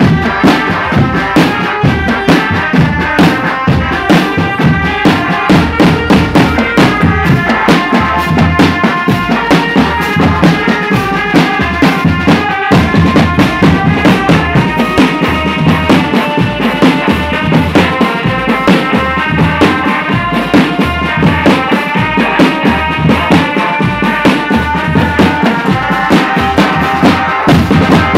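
Marching drum band playing: rapid snare and bass drum strokes under a sustained melody line.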